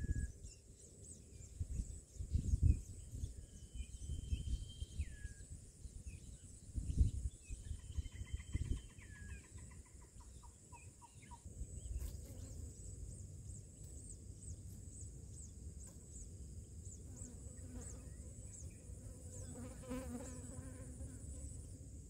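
Outdoor insect ambience: a steady high buzz with rapidly repeated chirps, with a few faint whistled bird calls in the first half and another short call near the end. Several low rumbling thumps break in, the loudest about two and a half and seven seconds in.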